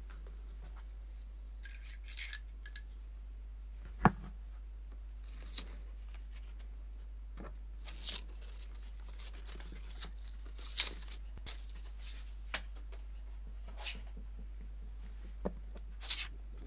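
Brown paper tape being peeled off the edges of a drawing sheet in short pulls, each a brief crackling rip, about six times. Two light knocks, about four seconds in and near the end, come from the paper and tape being handled on the cutting mat.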